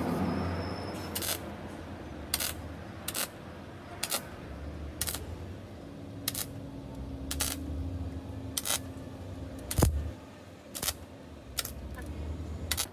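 Electric welder tack-welding a steel patch panel onto a car's rusted rocker: short crackling welds about once a second, about a dozen in all, over a steady low hum.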